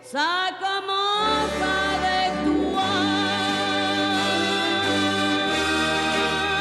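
Background music: orchestral song with sung vocals. It opens with a quick downward glide, then held notes over a steady bass.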